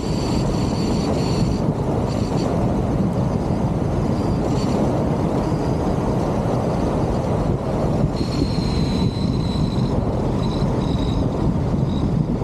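Steady wind rushing over the microphone and tyre rumble from a 2019 Honda Civic driving along at road speed, with thin high whining tones coming and going several times.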